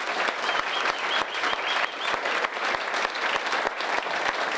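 A roomful of people applauding, dense steady clapping, with a string of short high-pitched notes over it from about half a second to two seconds in.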